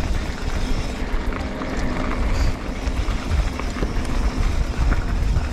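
Mountain bike riding down a dirt singletrack at speed: wind buffeting the microphone and tyres rolling over the trail, with frequent small rattles and clicks from the bike.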